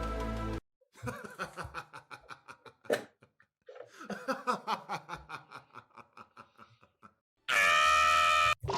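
Background music stops about half a second in. A voice then laughs in quick, rapid snickering bursts, in two long runs. Near the end comes a loud, held, shrill tone lasting about a second.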